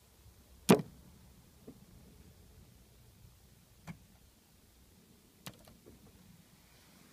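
Sharp knocks on a car as a magpie swoops at it and strikes it: one loud knock about a second in, then three fainter ones spread over the next few seconds.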